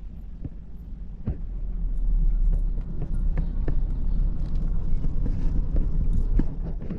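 Car driving slowly: a steady low engine and road rumble that grows louder about two seconds in, with scattered knocks and rattles.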